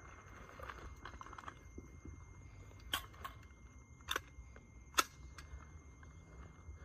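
Sharp clicks and knocks of soldiers' rifles and gear being handled, three distinct ones about a second apart near the middle among quieter ticks and rustling, over a steady high-pitched insect drone.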